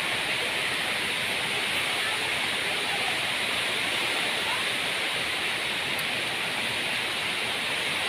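Steady rush of falling water from a nearby waterfall, an even hiss with no breaks.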